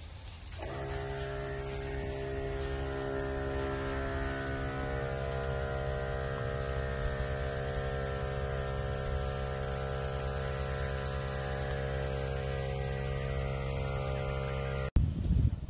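A cat purring steadily right against the microphone, a continuous low hum with many overtones that starts about half a second in and cuts off abruptly near the end.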